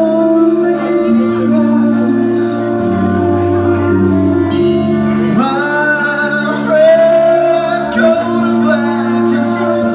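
Live rock band playing electric guitars through amplifiers, with a voice singing over them; about five seconds in the vocal slides up and holds a long note.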